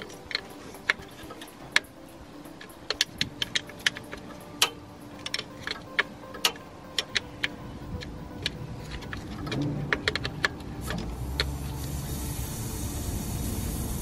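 Irregular sharp metal clicks and taps of a wrench working the 12 mm nut on the air line fitting of a Mercedes Airmatic suspension compressor. About three quarters of the way in, a steady hiss starts as the loosened line lets the stored air pressure escape.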